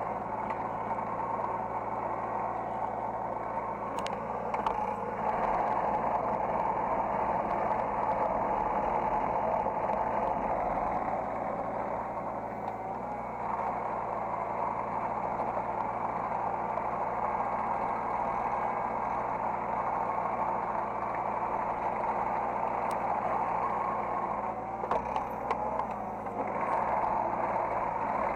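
Hydraulic excavator's diesel engine running steadily, heard from the operator's cab, growing louder about five seconds in and settling back about eight seconds later, with a few light knocks.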